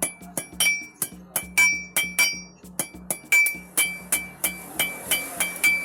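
Blacksmith's hand hammer striking hot metal on a metal anvil base, about three strikes a second in an uneven rhythm, each blow ringing with a metallic clang. This is hand forging, beating the edge of the heated metal to shape.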